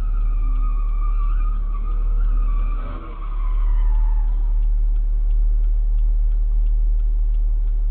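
Traffic at an intersection: a steady low engine rumble under a long, high squeal that wavers and then falls in pitch about four seconds in, with faint regular ticking.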